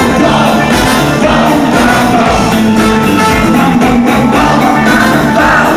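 Band music from a song: an instrumental passage between the chorus and the next verse, with drums keeping a steady beat.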